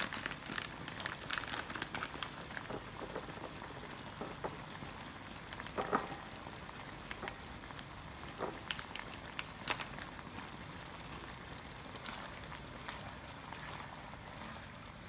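Stir-fry in a wok bubbling and sizzling, chicken and vegetables simmering in stock thickened with cornflour into a plum-sauce gravy. It is a steady crackling hiss with scattered small pops and a few sharper clicks.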